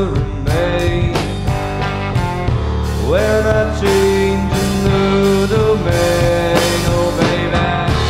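Psychedelic blues-rock band playing an instrumental passage. A lead line of long held notes rises in pitch with a bend about three seconds in, over a steady bass and drum hits.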